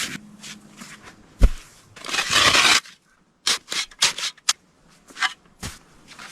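Footsteps crunching in deep snow: uneven crunches, with a longer scraping crunch about two seconds in.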